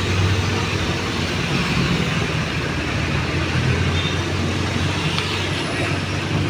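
City road traffic with a vehicle engine running close by, a steady low hum under the noise of the street.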